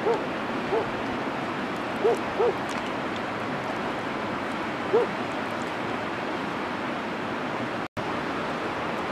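Steady rush of a rocky river, with a few short single-note animal calls over it: two close together about two seconds in and another about five seconds in. The sound cuts out for an instant near the end.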